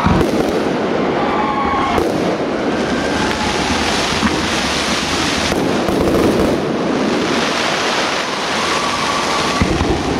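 Professional firework display: a handful of sharp bangs from bursting shells, spaced a few seconds apart, over a continuous rushing hiss of burning fireworks.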